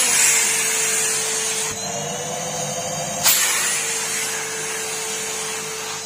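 Numatic Henry vacuum cleaner running, its hose sucking cake crumbs off a sofa: a steady motor whine over the hiss of rushing air, with a sharp click about three seconds in.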